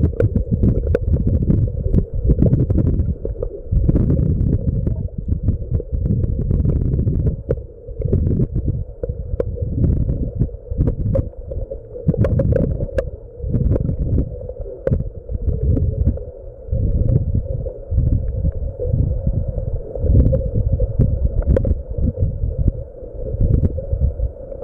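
Muffled underwater rumbling and sloshing of sea water around a submerged digital camera, swelling and fading every second or two over a steady low hum.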